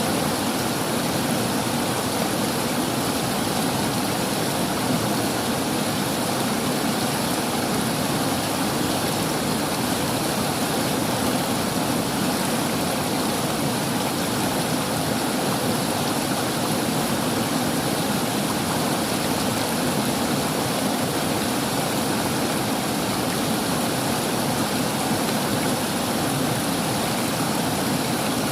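River water flowing steadily over rocks, an even rushing noise with no breaks.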